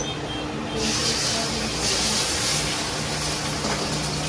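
Beaten eggs sizzling in hot oil in a wok. The sizzle comes in sharply about a second in and then goes on steadily.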